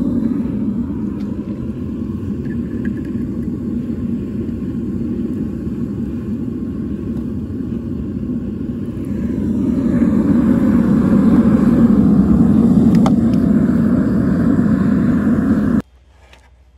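Propane-fired metal-melting furnace burner running, a steady loud rushing noise that swells about ten seconds in and stops abruptly near the end. A single sharp click sounds about thirteen seconds in.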